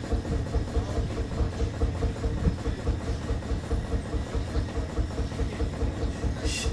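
An engine idling with an even, rapid chugging beat. A brief high-pitched squeak comes near the end.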